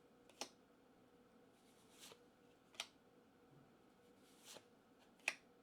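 Pokémon trading cards being flipped through one at a time, very quiet: soft swishes of card sliding over card and three sharp little snaps a couple of seconds apart.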